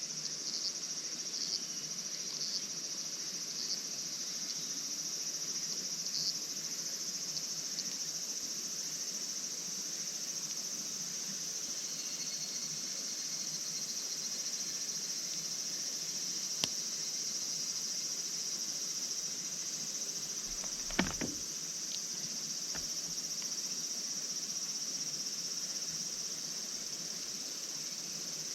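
Crickets chirping in a steady, high, continuous trill, with a few faint ticks early on and one sharp knock about 21 seconds in.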